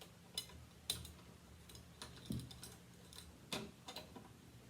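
Craft wire clicking and ticking against a glass bottle as it is pushed through under another wire and pulled taut. The clicks are faint, sharp and irregular, about half a dozen.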